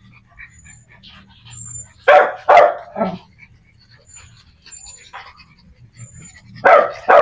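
A pack of small dogs barking: three loud barks in quick succession about two seconds in, two more near the end, and quieter yips in between.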